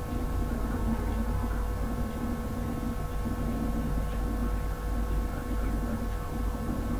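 Steady background hum: a low rumble with several fixed tones running unchanged throughout.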